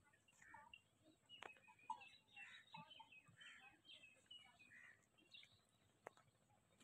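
Faint chirping of small birds, many short calls in quick succession, with a sharp click about a second and a half in and another near the end.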